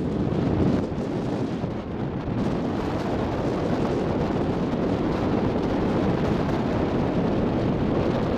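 Wind buffeting the microphone over the steady running noise of a harbour ferry under way: its engine and water rushing past the hull. The noise stays steady throughout, heaviest in the low end.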